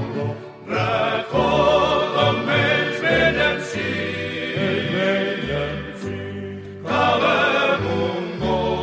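Recorded havanera song: a group of voices singing in harmony with wavering, held notes over a steady bass accompaniment.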